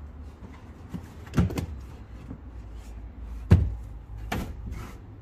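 Carpeted cargo-floor panel and trim in a Nissan 370Z's hatch area being handled and lifted out, giving three thumps with some rustling, the loudest about three and a half seconds in.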